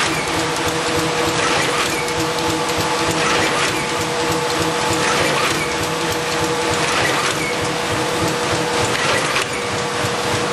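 IBIS Smart-binder saddle-stitching machine running: a continuous mechanical clatter from its sheet feed, stitching heads and folding rollers over a steady hum, with louder clacks about every two seconds.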